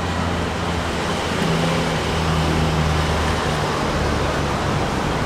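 Street traffic noise, with a motor vehicle engine humming low and steady close by and easing off after about three and a half seconds, over a constant wash of background noise.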